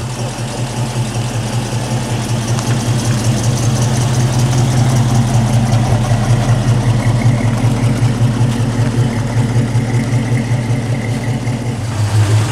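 A V8 muscle car engine idling steadily with a low, pulsing rumble.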